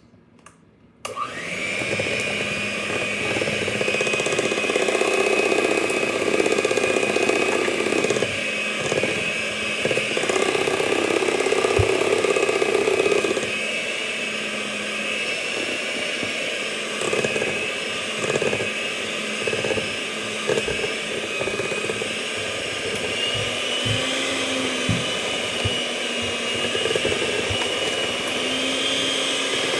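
Electric hand mixer switching on about a second in and running steadily, its beaters churning cake batter, with the motor's whine rising a little in pitch near the end.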